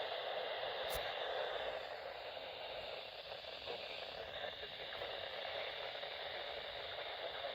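Weather radio receiver hissing with static through its small speaker, a steady noisy signal with no clear voice. A single faint click about a second in.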